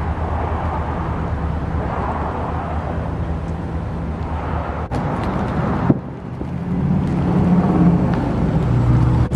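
2020 Corvette C8's 6.2-litre V8 idling with a steady low note. The sound cuts abruptly twice, about five and six seconds in, and is a little louder over the last few seconds.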